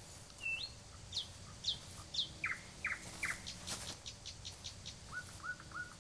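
Small bird chirping in three groups of three short downward-sliding chirps, each group lower in pitch than the one before, with a quick run of ticks between the second and third groups. One brief rustle comes in the middle.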